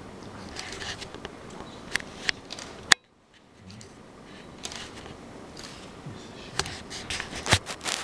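Scattered sharp clicks and soft rustling in a quiet room. The sound drops out almost completely for about half a second about three seconds in, then fades back.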